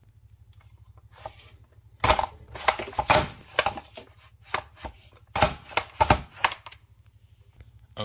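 Potatoes being cut in a hand-cranked rotary vegetable slicer: uneven bursts of crunching and clattering starting about two seconds in, with a low steady hum underneath.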